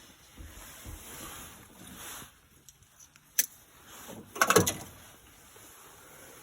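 Hand-handling noises while working on wiring: soft rustling, a single sharp click about three and a half seconds in, then a short clatter of clicks and rattles about a second later, the loudest sound here.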